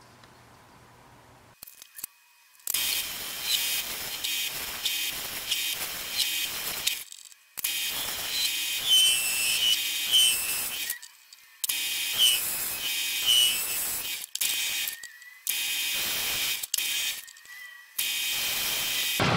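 Metal lathe turning a cast iron workpiece with a carbide tool: a scratchy cutting hiss with an even pulse about twice a second. It starts a few seconds in and cuts out and back in sharply several times.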